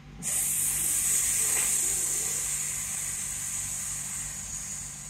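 A woman's long 'sss' hiss, breathed out steadily through the teeth as the lung sound of the qigong Six Healing Sounds exercise. It starts about a quarter second in and slowly fades away over about five seconds.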